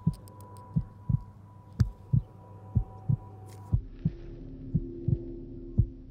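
Heartbeat sound effect: a slow, even lub-dub, about one double beat a second, over a steady low hum whose pitch shifts about halfway through.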